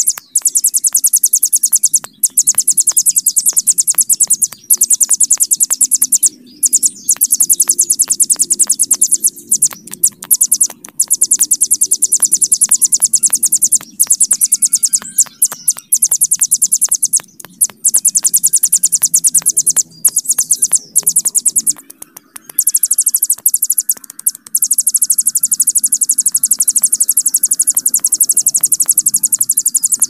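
Ciblek gunung, a prinia, singing long, fast, high-pitched rattling trills. Each run lasts a few seconds with brief breaks between them.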